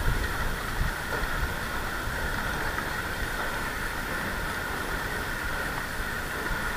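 Steady hiss with low rumbling and a few thumps near the start: wind and handling noise on a wearable action camera's microphone, unchanged whether or not the reel is being cranked.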